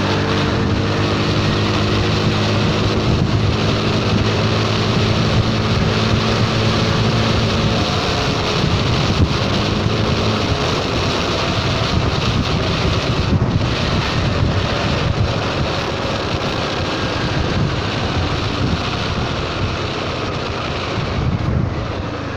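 Honda Forza 300 scooter's single-cylinder engine running steadily at road speed, with wind rushing over the microphone. The engine's hum is clear for the first eight seconds or so, then it is mostly wind rush, and the sound eases off near the end. The exhaust is running loud, which the rider thinks may come from a loosening exhaust bolt.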